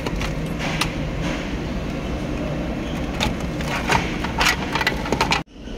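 Scattered clicks and knocks over a steady noise, the clicks coming more often in the second half; the sound cuts off suddenly just before the end.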